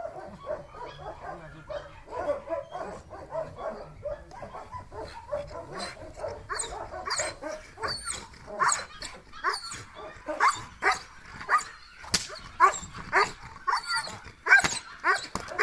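Young German Shepherd whining and yipping, then barking again and again, the barks louder and sharper in the second half as it lunges at a rag waved in front of it: excited prey-drive barking.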